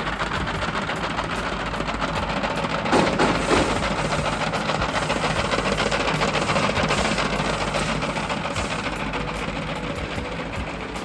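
DTF powder shaker machine running: a steady mechanical noise with a fast rattle from its shaking and powder-brushing mechanism, with two brief louder knocks about three seconds in.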